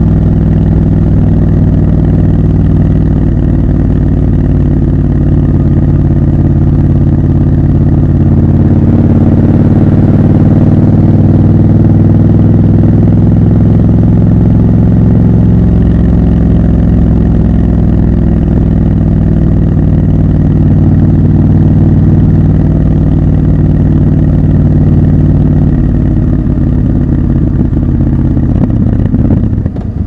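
Triumph Scrambler 1200 XC's 1200 cc parallel-twin engine running steadily as the motorcycle cruises, heard loud and close from the rider's position, with a slight swell in the middle and easing off near the end.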